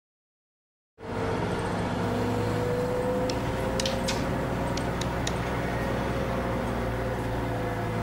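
Steady rumbling noise with a low hum and a faint held tone, starting suddenly about a second in, with a few light clicks midway: recorded ambience opening a track before the music starts.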